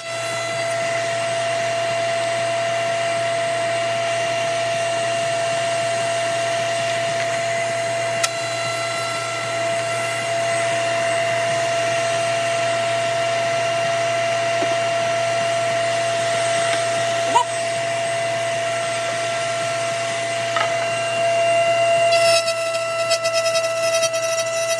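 Router in a router table running at speed with a steady high whine, cutting a hinge mortise as a zebrawood box side is fed along the fence. A sharp tick comes twice, and the sound turns rougher and busier about three seconds before the end.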